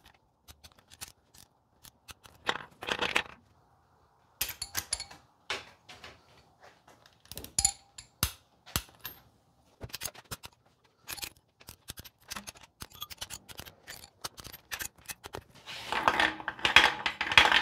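Ratcheting torque wrench tightening the cam and main-bearing nuts on a VW air-cooled engine case at 14 foot-pounds: runs of sharp ratchet clicks with short pauses between pulls. Near the end comes a louder, denser clatter of handling.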